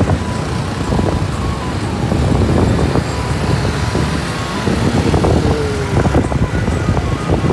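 Motorcycle engine and road noise while riding a Bajaj Pulsar NS200 single-cylinder through city traffic, with the scooters around it.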